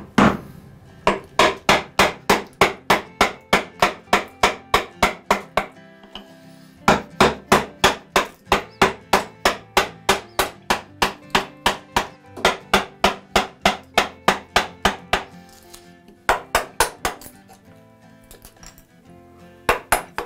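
Wooden mallet striking a bench chisel in runs of quick blows, about three a second, with short pauses between runs, as the chisel chops a recess into a wooden workbench top. Soft background music underneath.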